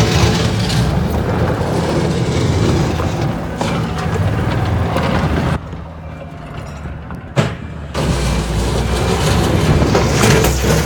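TL130 skid-steer loader's diesel engine running. Past the middle it drops to a quieter, duller note for about two seconds, broken by a single click, then comes back with a deeper steady drone.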